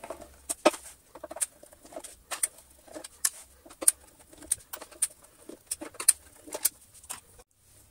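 Hand screwdriver backing screws out of the plastic top of a Dyson DC33 cyclone: a string of sharp, irregular clicks, about two or three a second.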